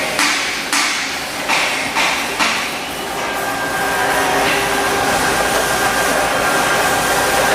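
Mori Seiki SL-400B CNC turning center running, with several sharp metallic clunks in the first two and a half seconds, then a steady machine hum and whine.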